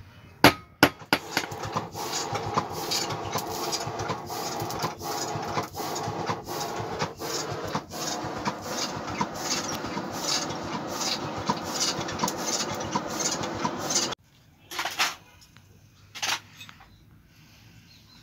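Blacksmith's hammer striking iron on an anvil in rapid, regular blows for about fourteen seconds, then stopping abruptly. Two more single strikes follow a moment later.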